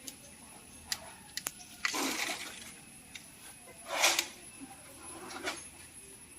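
Water splashing out of a borewell column pipe in two short gushes as the pipe is lifted and separated, with a few light clicks from the pipe and its fittings beforehand.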